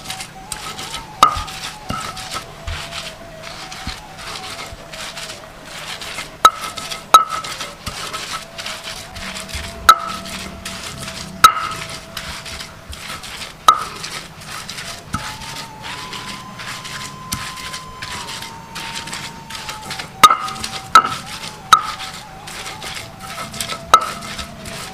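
Stone pestle grinding grated coconut into chili spice paste on a stone mortar (cobek), rubbing and scraping in quick strokes. Sharp stone-on-stone knocks come now and then.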